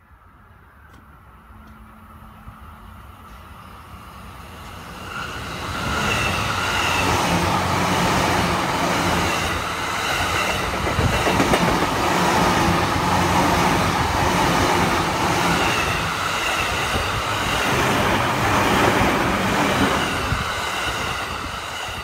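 A JR Takasaki Line stainless electric commuter train in orange-and-green livery approaching and passing close by. Wheels clatter on the rails under a steady whine. The sound grows from faint to loud over the first six seconds and falls away near the end.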